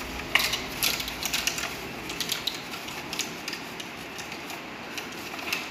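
Rolled colour-paper sticks clicking and rattling against one another and a plastic bottle as they are gathered and spread around it by hand: a quick run of light clicks that thins out after about three seconds.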